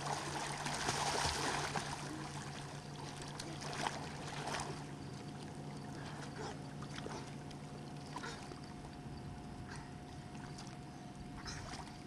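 Water splashed and churned by two children swimming, loudest in the first couple of seconds, then fading to softer lapping with a few small splashes.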